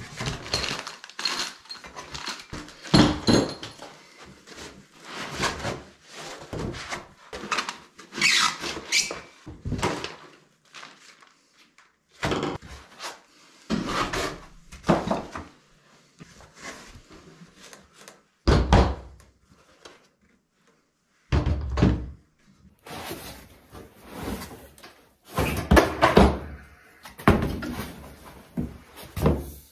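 Unpacking a cardboard box by hand: foam packing blocks rubbing and squeaking, cardboard flaps moving, and heavy steel implement-lift parts being set down and knocking together. The sounds come in irregular bursts with short pauses, with a few heavier thuds about two-thirds of the way in.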